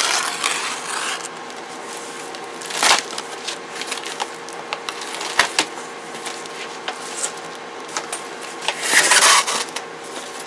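Cardboard box being opened by hand: flaps pulled up and pushed back, with scraping and crackling of cardboard and many short clicks and knocks. The louder scrapes come near the start, about three seconds in, and about nine seconds in.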